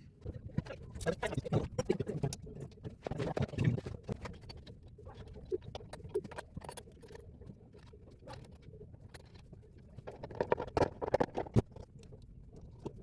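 Hands working on an amplifier circuit board: irregular clicks, taps and scrapes of small parts and tools, busiest in the first few seconds and again about ten seconds in.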